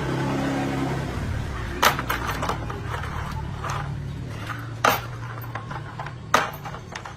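A low steady machine hum, strongest in the first second, with three sharp knocks or clanks about two, five and six and a half seconds in.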